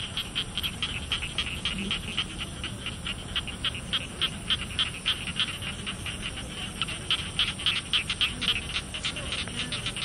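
Night insect chorus in a rice paddy: a continuous high-pitched trill under fast, rhythmic chirping, several pulses a second.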